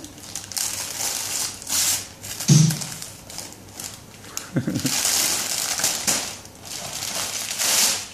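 Christmas wrapping paper crinkling and tearing in irregular rustling bursts as a toddler pulls it off a present, with a couple of brief vocal sounds.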